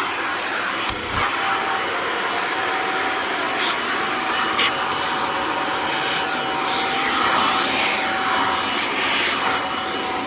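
Kirby Ultimate G Diamond Edition upright vacuum with a 7-amp direct-air motor, running on high speed in hose and tool mode. A steady motor whine and rush of air waver as the upholstery tool is worked over couch cushions, with a couple of light knocks about four seconds in.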